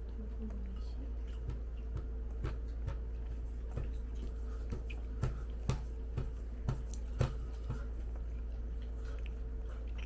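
Close-up eating sounds: chewing with wet smacks and small clicks, irregular and about every half second, over a steady low hum.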